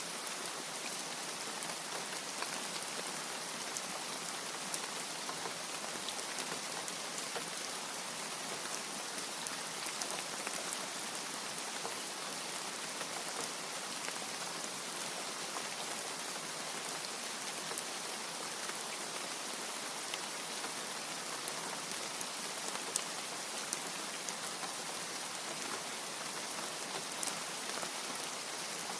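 Steady rain: a dense, even hiss with scattered sharp ticks of individual drops striking a surface, and no thunder.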